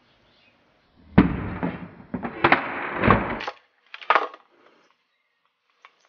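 Overheated Texas Instruments TI-30X IIS calculator on a small canister camp stove cracking and popping: a loud burst of crackle with several sharp cracks lasting about two and a half seconds, then two short clicks. The owner suspects its battery could have blown up.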